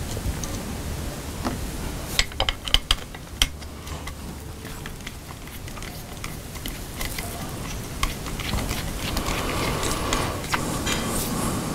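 A precision screwdriver backing small screws out of a metal gimbal head: a quick cluster of sharp little metal clicks about two to three and a half seconds in, then soft handling and rubbing noise toward the end.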